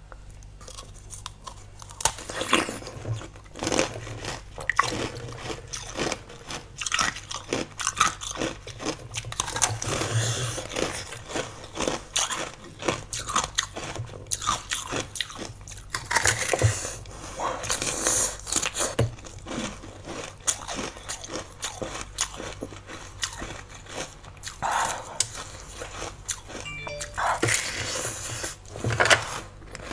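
Biting into frozen green jelly treats: crisp, crackling crunches come irregularly throughout, with chewing between bites.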